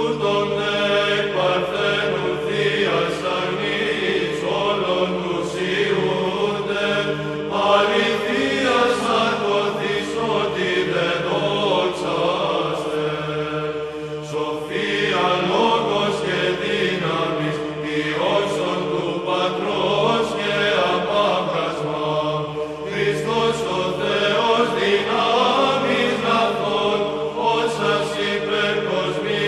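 Byzantine church choir chanting a Greek Orthodox Christmas hymn. The melody moves over a steady held drone note (the ison).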